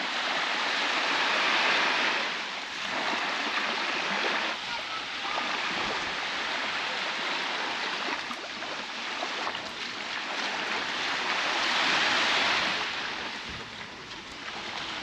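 Baltic Sea waves washing onto a beach, a continuous surf that swells and eases every few seconds.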